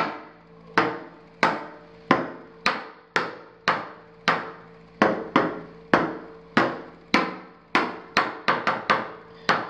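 Shower wall tiles tapped over and over with a hand-held tool: sharp knocks about one to two a second, each with a short ring, coming quicker near the end. The tiles ring hollow, a sign they were not set right and are loose.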